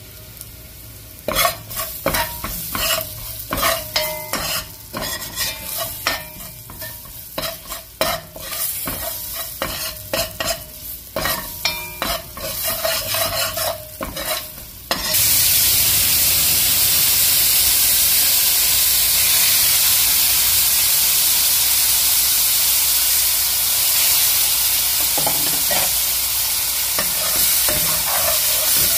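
A metal spoon scraping and knocking around a pot as curry powder and garlic fry in oil. About halfway through, a sudden loud, steady sizzling hiss begins as liquid goes into the hot curry.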